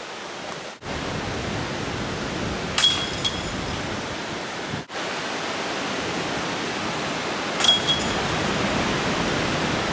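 Two disc golf putts striking the chains of a metal basket, about five seconds apart: each a sharp metallic clink with a short high ring, over steady background noise.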